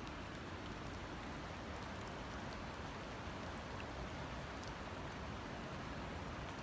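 Steady rain falling on lake water and rock, an even hiss with a few faint ticks.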